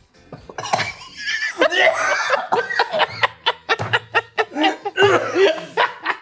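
Men laughing hard in rapid, breathy bursts, starting about half a second in.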